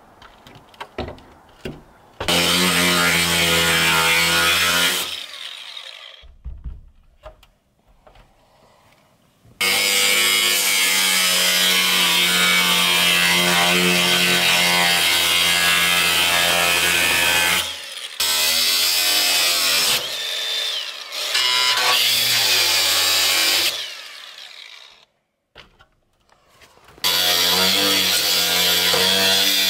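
Angle grinder with a cut-off wheel cutting through the corrugated steel wall of a shipping container: the motor runs loud and steady in four cuts of a few seconds each, winding down and stopping between them.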